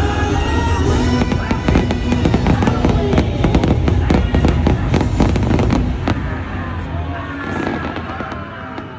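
Fireworks show: a rapid run of bangs and crackles over loud show music, thickest through the middle, then thinning out as the whole sound dies down near the end.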